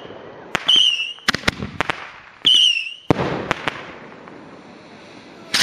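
Fireworks going off at close range: a quick series of sharp bangs and pops, three of them followed by a short high whistle. About three seconds in comes a longer hissing, crackling burst that slowly fades.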